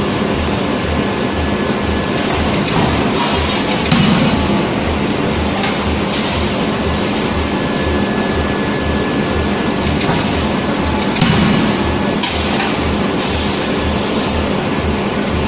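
Forge-shop machinery running around an Anyang C92K CNC hydraulic die-forging hammer as it forges hot eye-bolt blanks: continuous loud mechanical noise with a low throb about three times a second. Two heavier knocks stand out, about four seconds in and again about eleven seconds in.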